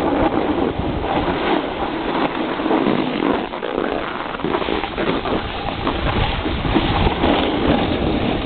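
Steady rushing and scraping of a snowboard sliding over packed snow while riding downhill, with wind buffeting the microphone.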